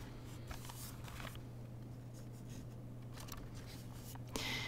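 Quiet room tone: a steady low hum with a few faint clicks, and a short soft hiss near the end.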